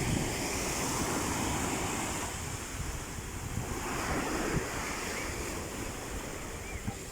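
Sea waves breaking and washing in, swelling twice, with wind buffeting the microphone.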